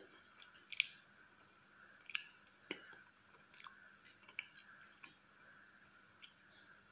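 Close-miked chewing of soft frosted cake: a string of short wet mouth clicks and smacks, about one every half second to second, the strongest about a second in.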